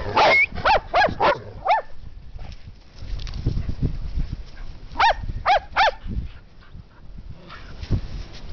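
Dog barking in quick bursts: about five sharp barks in the first two seconds, then three more a little past the middle.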